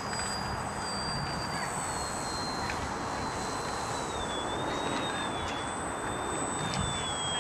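Electric motor and propeller of a foam RC stunt plane whining in flight, the pitch sliding slowly down and then rising a little near the end as the throttle changes, over a steady rush of wind on the microphone.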